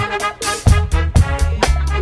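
Soundtrack music with a steady drum beat, about two hits a second, under sustained pitched instrument lines.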